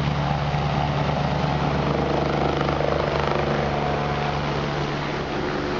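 Medical helicopter lifting off from its pad: a steady rotor beat with turbine whine over it.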